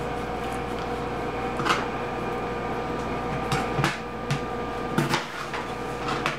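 Kitchen knife cutting through a raw potato onto a plastic cutting board: a handful of sharp, irregular knocks, over a steady background hum.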